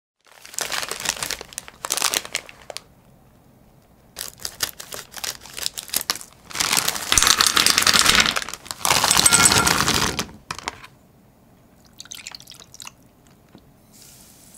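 Plastic bag of frozen blueberries crinkling as it is handled and shaken, with the berries tumbling out into a stainless steel saucepan. The sound comes in several bursts, the longest and loudest in the middle, and a faint pour of granulated sugar is heard at the very end.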